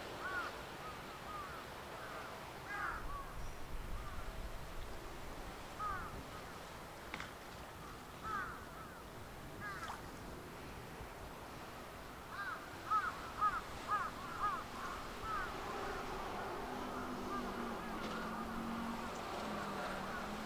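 Birds calling in short, arched calls, scattered at first and then in a quick run of about half a dozen calls about two-thirds of the way in. A low steady drone comes in near the end.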